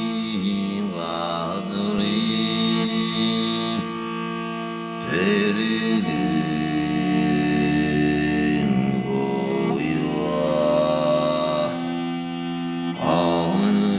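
Soundtrack music: a held drone with a sliding melodic line that comes in phrases about every four seconds.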